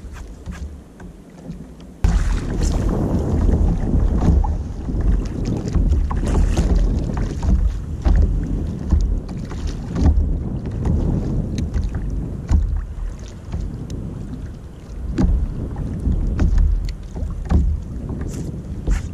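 Wind buffeting the microphone as a heavy, uneven low rumble that comes on suddenly about two seconds in, over water slapping and splashing against the kayak's hull in choppy sea.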